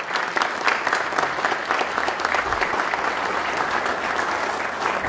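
Audience applauding steadily: dense, even hand clapping from a seated crowd.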